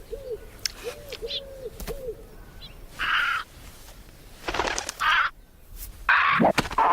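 An owl hooting in a quick run of short hoots through the first two seconds. Three short bursts of noise follow, the last the loudest, near the end.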